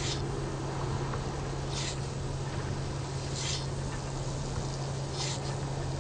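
Škoda Fabia rear wiper sweeping across the wet rear window while the washer sprays, a short swish about every 1.7 seconds, over a steady low hum.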